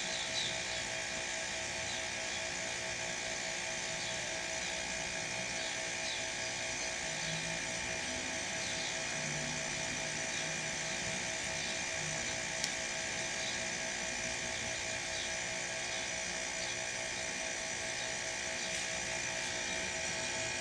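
Two refrigerator compressors running together as a homemade air compressor, a steady hum with a fast, even pulsing as they pump air into the tank. A single sharp click about halfway through.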